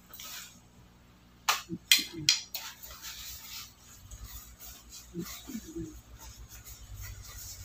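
Chewing of fried food close to a clip-on microphone, with a few sharp crunching clicks about one and a half to two and a half seconds in. This is followed by a paper tissue rustling and being rubbed over the mouth, heard as a soft hiss and then a low, rapid rubbing against the mic.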